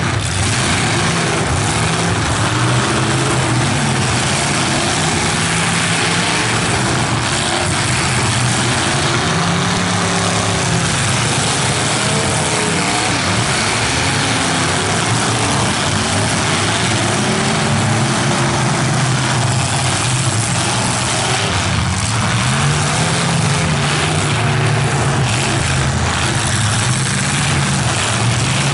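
Several stock full-size demolition derby cars' engines running hard and revving, their notes rising and falling over one another, with the steady rush of tyres spinning in the dirt.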